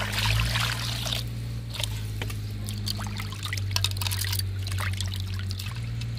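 Water poured into a steel kadhai holding cut small fish, the stream stopping about a second in; then hands swishing and rubbing the fish in the water, with small splashes and sloshing. A steady low hum runs underneath.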